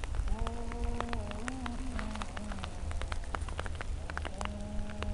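Outdoor background noise: low wind rumble on the microphone with scattered crackling ticks, and a faint distant held tone with overtones heard twice, steady at first and then wavering in pitch.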